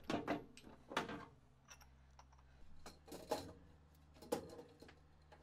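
A few faint scattered metal clicks and knocks from a ratchet wrench turning a 2-inch knockout punch through a sheet-metal electrical cabinet wall, over a faint low hum.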